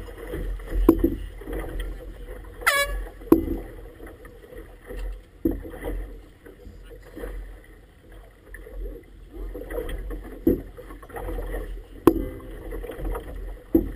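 Wind buffeting the microphone and small waves slapping against the inflatable tube of a rigid inflatable boat, with several sharp knocks. About three seconds in, a short high tone sweeps steeply down in pitch.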